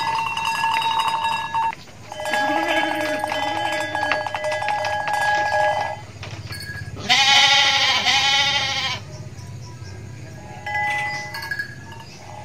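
A sheep bleating: one loud, wavering bleat about two seconds long, starting some seven seconds in. Before it, steady ringing tones sound for several seconds, and a few fainter ones follow near the end.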